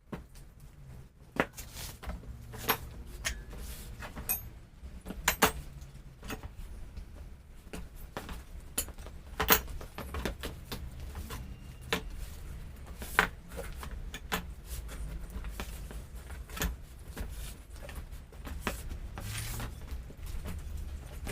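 Metal clinks and knocks from hand tools and parts during a motorcycle front-tyre change, scattered irregular strikes over a steady low rumble.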